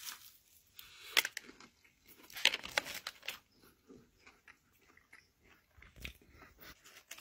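A person biting into and chewing a sandwich with habanero pickles close to the microphone: a sharp crunch about a second in, a cluster of crunches around two and a half seconds, then quieter chewing.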